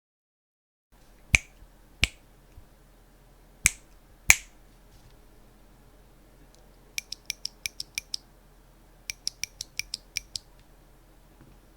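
Mechanical keyboard with ZealPC Clickiez switches in clicky mode, on a POM plate with MT3 ABS keycaps, being pressed: four louder single keystrokes spaced apart, then two quick runs of about eight and seven sharp, high clicks typed in succession.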